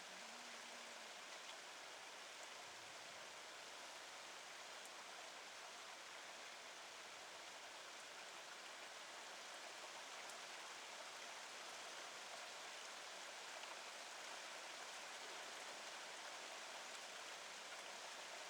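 Steady rain falling, a faint, even hiss with no distinct drops or thunder.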